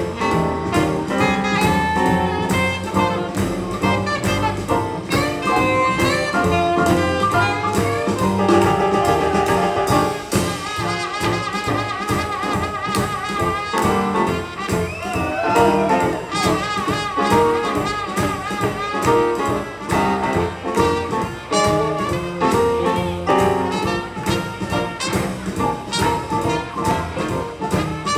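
Live swing jazz band playing: horns over an even beat from the rhythm section of acoustic guitar, double bass and keyboard. Through the middle a horn holds long, wavering notes.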